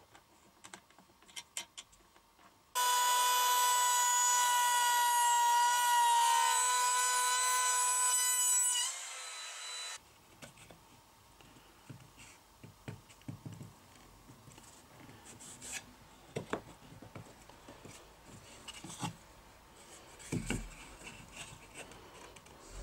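Compact wood router's motor starting about three seconds in with a high, steady whine, running for about six seconds as it routes a groove in a pine board, then switched off and winding down. The rest is soft wooden knocks and rubbing as the hardwood strip is fitted into the groove by hand.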